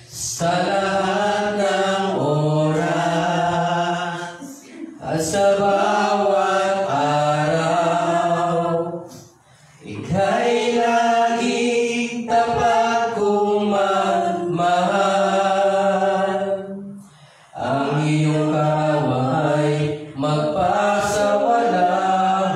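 A man singing a Tagalog worship song a cappella into a microphone, with no instruments: slow phrases of long held notes, broken by short pauses about 4, 9 and 17 seconds in.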